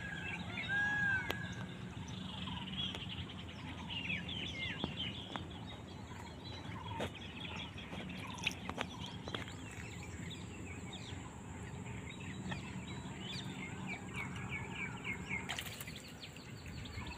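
Several wild birds chirping and calling, with a run of arched, repeated call notes in the first second or so. A few sharp clicks stand out here and there.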